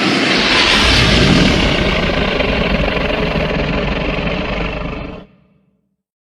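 Custom monster roar sound effect blended from Godzilla and Tyrannosaurus rex roars: one long roar with a deep rumble underneath, ending abruptly about five seconds in.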